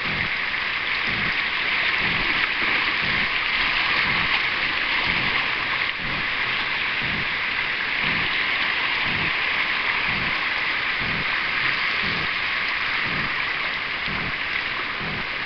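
Fast, shallow river water rushing and splashing over a rocky riffle around a canoe, a steady loud hiss, with faint low thuds about once a second.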